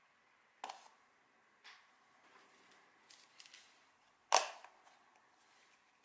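Light clicks and taps of a clear plastic lid being handled and set on a cutting mat, with one sharp, louder click a little over four seconds in.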